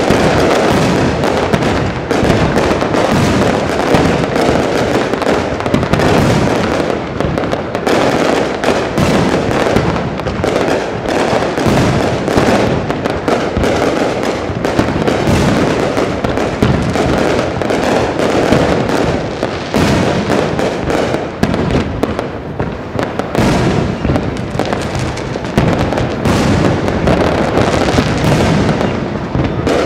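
Aerial fireworks display: a dense, unbroken barrage of many overlapping shell bursts, bangs and crackles.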